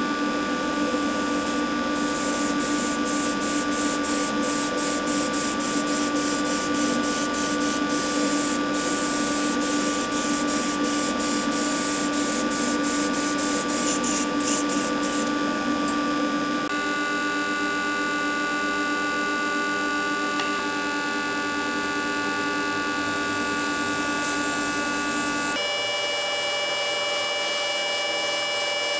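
A small electric motor hums steadily under an even hiss of moving air, typical of a spray-booth fan or airbrush compressor. Its tone changes abruptly twice, at about 17 and 26 seconds in.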